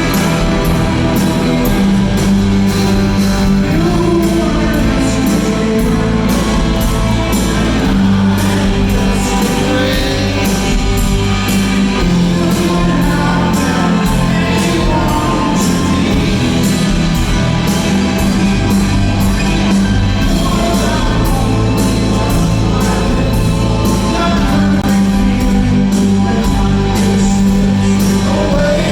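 A rock band playing live in a large hall: electric guitars, bass and a steady drum beat, with singing over them.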